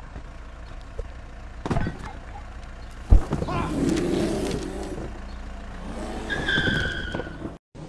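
A mail delivery truck's engine running steadily, with a sharp thump about three seconds in and a brief high squeal near the end.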